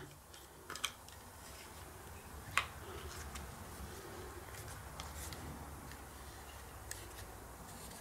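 Faint clicks and handling noise of Dyson DC59 cyclone assembly parts being turned over and fitted together, with a sharper click about two and a half seconds in.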